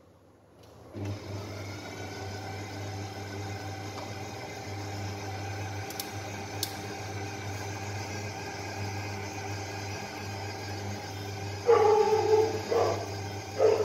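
Electric stand mixer starting up about a second in, then running steadily with a low motor hum as its balloon whisk beats milk and eggs in a steel bowl. A few louder short sounds cut in near the end.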